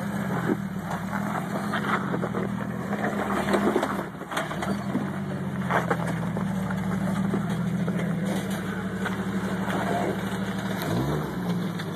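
Off-road Jeep's engine running at low revs as it crawls over sandstone ledges, with occasional clicks and knocks. Near the end the revs rise and fall twice.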